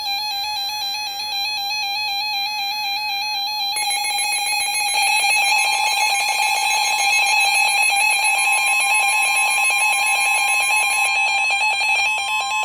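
Emergency Alert System attention tone: a harsh, steady electronic alarm tone sounding continuously. It grows louder and fuller about four seconds in, when a second, higher tone joins it. It signals that a warning message follows.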